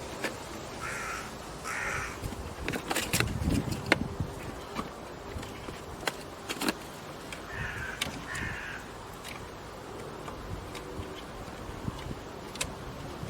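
A bird calls outdoors in two pairs of short calls, about a second in and again about eight seconds in, over scattered clicks and knocks.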